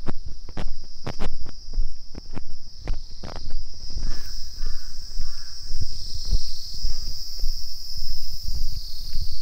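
Footsteps of someone walking, heard as irregular crunches and thuds, over a steady high drone of insects. About four seconds in, a bird calls three times in quick succession.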